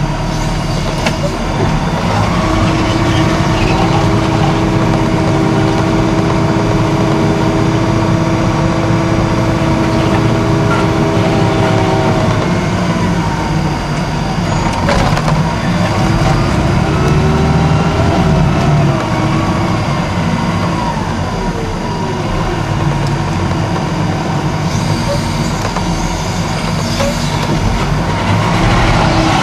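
Caterpillar IT28 wheel loader's diesel engine running steadily under load, heard from inside the cab, with a whine over the engine note that holds steady, then rises and falls as the machine works.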